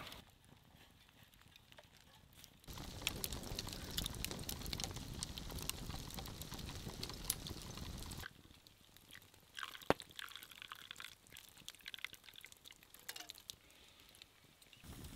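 Wood campfire crackling for several seconds, then quieter liquid sounds: hot water pouring and dripping from a cooking pot into a wooden cup.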